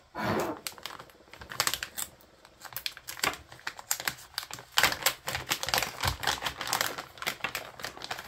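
Clear plastic packaging bag crinkling and crackling as it is handled and pulled open, a dense run of irregular crackles that grows busier about halfway through.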